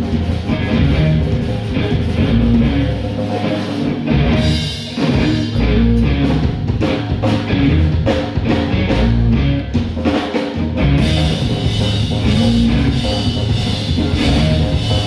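Live rock band playing: electric guitar, bass guitar and drums, with the drum hits thickest through the middle.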